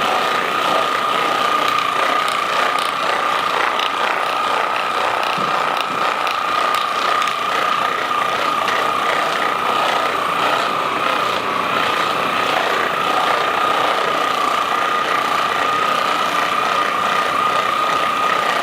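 Percussion massage gun running steadily on the patient's back muscles, loosening them before a chiropractic adjustment. It gives a constant high motor whine with a fast, even hammering rattle.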